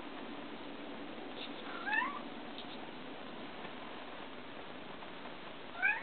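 Budgerigar giving two short rising chirps, one about two seconds in and one near the end, over a steady low background hiss.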